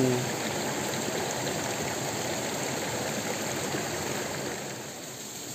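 Shallow rocky stream running swiftly over stones: a steady rush of flowing water, easing slightly near the end.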